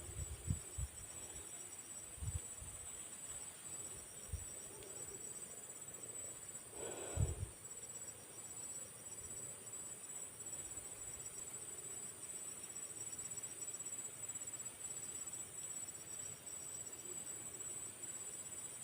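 Crickets chirping: a steady high trill over a faster pulsing chirp, unbroken throughout. A single short dull thump about seven seconds in, with a few softer knocks near the start.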